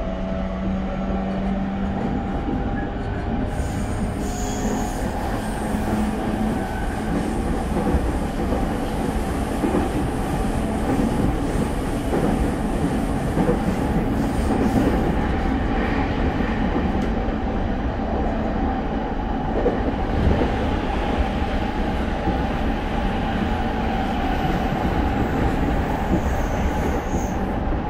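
Running sound inside a JR East E231 series 1000 motor car (MoHa E231, Hitachi IGBT-VVVF): a steady rumble of wheels and running gear on the rails. Brief high wheel squeals come about four seconds in and again near the end.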